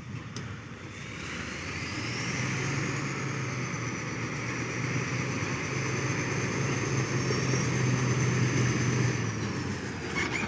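Caterpillar 12F motor grader's diesel engine working under load as the grader drives closer, growing louder. A high turbo whistle rises about two seconds in, holds steady, and falls away near the end.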